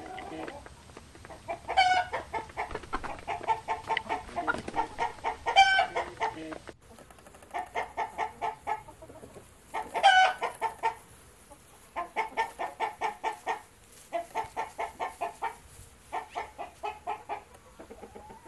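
Chickens clucking: hens give rapid runs of clucks, each run about a second long with short gaps between, and now and then a louder, higher squawk breaks in.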